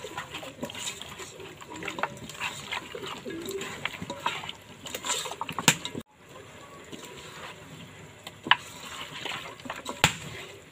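Raw chicken pieces being mixed and squeezed by hand with spice powder in a pot: irregular wet squelching and slapping of the meat, with sharp clicks now and then. The sound breaks off for an instant about six seconds in.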